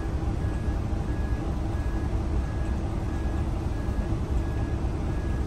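Scania L94UB city bus heard from inside the passenger cabin: a steady engine and drivetrain rumble, with a faint high beep repeating about every two-thirds of a second.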